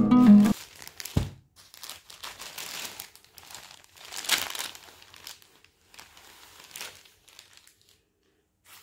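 Guitar background music that cuts off about half a second in, then irregular rustling and crinkling as folded silk sarees and their wrapping are handled and moved, loudest about four seconds in.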